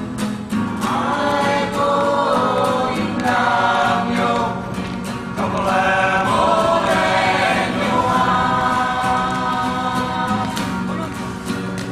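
Music: a group of voices singing together over an even, steady beat.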